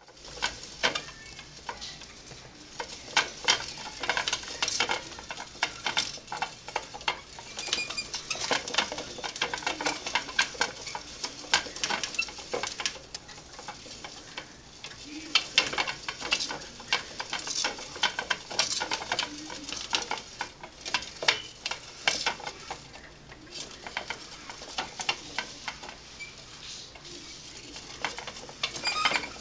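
A small pet rodent running inside a plastic sphere-shaped exercise wheel on a tube cage: a steady, uneven rattle of rapid plastic clicks and ticks as the wheel turns, with louder clattering bursts now and then.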